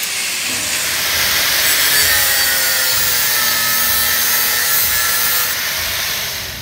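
Electric angle grinder with an abrasive disc grinding the damaged steel threads on the end of a truck's rear axle spindle: a steady, loud grinding hiss with a whine that drifts in pitch as the disc is pressed on. Near the end the disc comes off the metal and the sound falls away.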